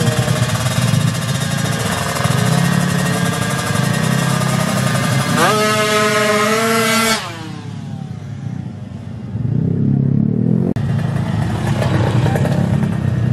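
Drag-race motorcycle engines revving at a start line. About five seconds in, one engine climbs to a high, held rev, and the sound then cuts off abruptly. Engine sound builds again a few seconds later.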